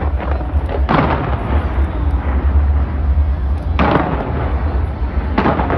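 Fireworks shells bursting, with three sharp bangs: about a second in, near four seconds and near the end. A continuous deep rumble runs underneath.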